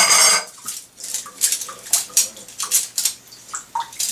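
A short splash of water at the start as a hand reaches into the tub water, then metal forks clinking and scraping against each other many times as they are rubbed dry in a cloth towel.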